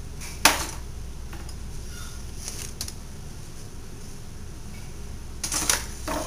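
Metal silverware clinking as it is handled and put away in a drawer: one sharp clink about half a second in, a few light ticks, then a quick cluster of clinks near the end, over a low steady hum.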